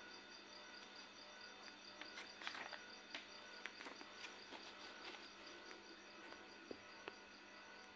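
Near silence, with soft rustling and light clicks of a paper question booklet being opened and handled, mostly about two to five seconds in. A faint, high, evenly pulsing chirp runs underneath.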